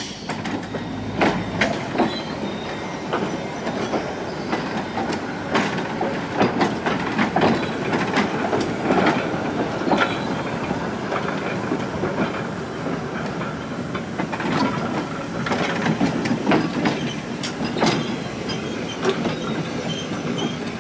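Vintage New York City subway cars rolling slowly past on steel rails: steady running rumble with irregular clicks and clacks of the wheels over rail joints.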